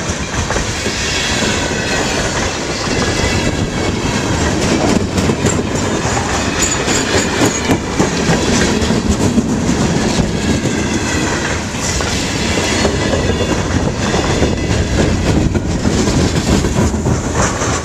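CN freight train's cars rolling past at close range, the steel wheels clattering rhythmically over the rail joints under a steady rumble.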